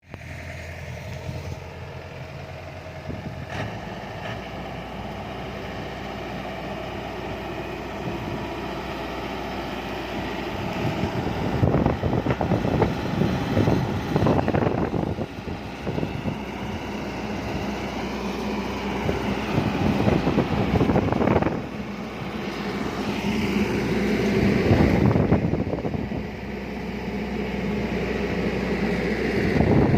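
Farm machinery's engine running steadily and gradually getting louder, with several surges of rushing noise over it.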